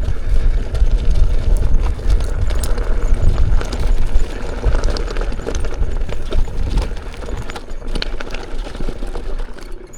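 Riding noise from an electric unicycle going down a rocky trail: a loud, gusting low rumble of wind on the microphone with scattered knocks and clatters as the tyre rolls over rocks. The rumble eases off somewhat in the last few seconds.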